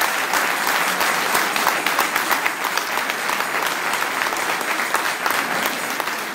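A large seated audience applauding, many hands clapping steadily.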